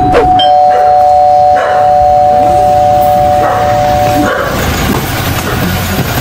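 A loud two-note tone held steady for about four seconds, then cutting off abruptly.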